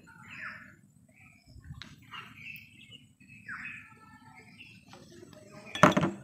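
Small birds chirping faintly in the background, a few short chirps every second or so. A brief louder sound comes near the end.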